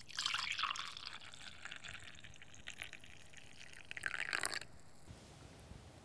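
Brewed filter coffee poured from a glass server into a ceramic mug: a splashing stream that starts loud and tapers off, with a second short burst of pouring about four seconds in.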